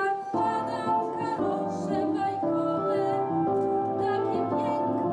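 A group singing a song with piano or keyboard accompaniment, notes held and changing steadily.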